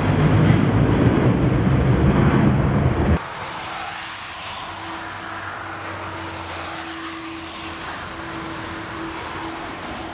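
A loud, rough low rumble for about three seconds that cuts off abruptly, followed by the steady, quieter sound of the Airbus A340-600's four Rolls-Royce Trent 500 turbofans on final approach, with a faint steady hum.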